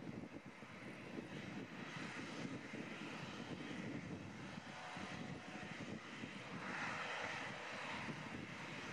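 Boeing 747-400's four jet engines at takeoff power during the takeoff roll, heard from behind as a steady, rough rumble with a hiss that swells a little near the end.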